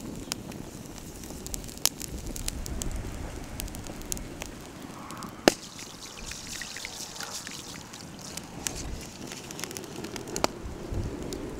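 Open wood fire of sticks and split logs crackling, with scattered sharp pops and snaps. A faint fine patter of salt falls into the water about six seconds in.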